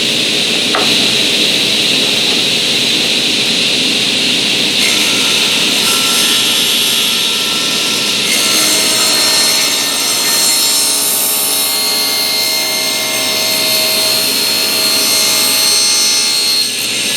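Table saw running and cutting a bevel along the edge of a pine board, a loud, steady whine. Its tone shifts about five seconds in and again around eight seconds in as the blade works through the wood.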